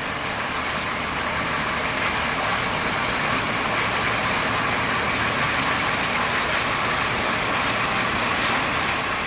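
Steady rush of water falling down a living-wall waterfall, with a faint low hum underneath.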